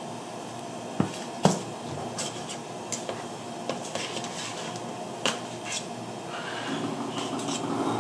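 Kitchenware clinking and knocking, a few sharp knocks of dishes or utensils about a second in and again past five seconds, over steady kitchen background noise that grows louder near the end.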